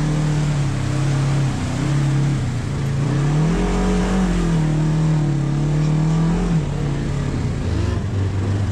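Side-by-side UTV's engine running under load as heard from inside the cab, revving up about three and a half seconds in, holding the higher revs for a few seconds, then dropping back.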